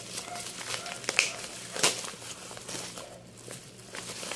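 Black plastic bubble-wrap packaging crinkling and rustling as it is handled and unwrapped, with a few sharp crackles about one and two seconds in.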